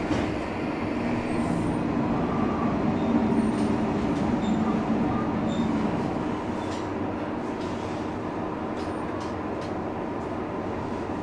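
Cab sound of a Kanto Railway KiHa 2000-series diesel railcar creeping into the end of the line: its engine hum and wheels on the rails. The hum drops about six seconds in as the railcar slows to a stop, with a few light clicks after.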